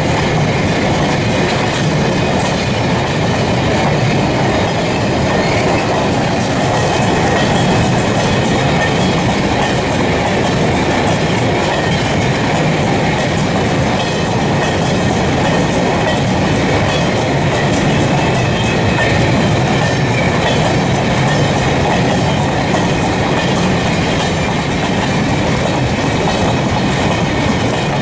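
Freight train of covered wagons hauled by VR Class Dv12 diesel locomotives rolling past at close range: a steady, loud rumble and clatter of wheels on the rails.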